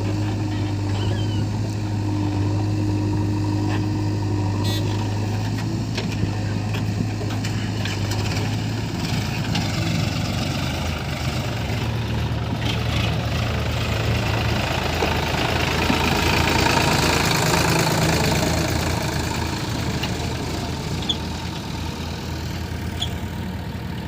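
Diesel engine of heavy machinery running steadily, its low hum shifting pitch about ten seconds in, growing louder for a few seconds past the middle and easing off near the end.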